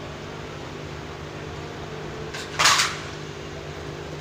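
Steady fan hum with a low even tone, broken about two and a half seconds in by a short, loud handling noise.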